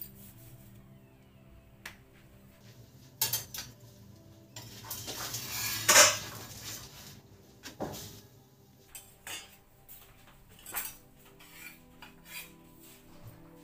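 Kitchen utensils clattering: a series of separate knocks and clinks of pans and cooking tools, the loudest about six seconds in.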